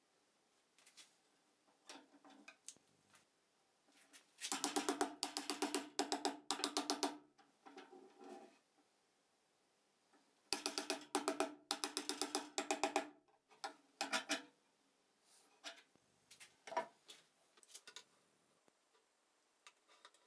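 Small hammer tapping quickly on a nail-studded template, pounding the nail tips into a birch plywood panel to mark the corners of a cutout. The taps come in two runs of about two and a half seconds each, ringing through the hollow plywood box, followed by a few scattered lighter knocks.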